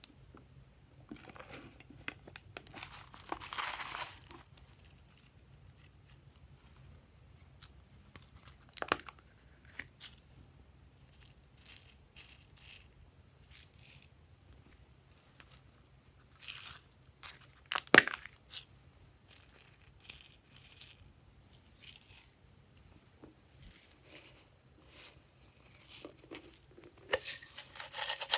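Small plastic containers being handled and opened over a slime tray, with scattered clicks and rustling. There is a single sharp click about two thirds of the way through. Near the end a quick rattle starts as small pieces are shaken out of a container onto the slime.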